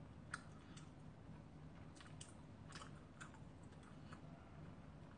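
Near silence: faint room tone with a few small, scattered clicks.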